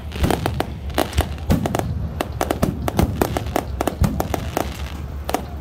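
Aerial fireworks display: a rapid, irregular run of bangs and cracks from shells bursting overhead, several a second, over a steady low rumble.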